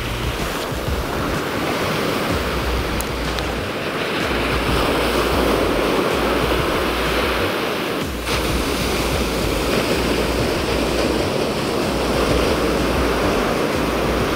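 Ocean surf breaking and washing continuously, with wind gusting on the microphone as a low rumble that comes and goes.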